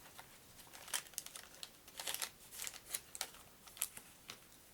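Board game cards and their packaging being handled: light rustling and crinkling with scattered soft clicks as cards are gathered and put away.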